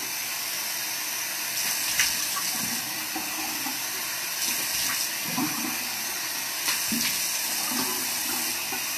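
Tap water running steadily into a bathroom sink while a face cleanser is rinsed off by hand, with a few short splashes as water is scooped to the face.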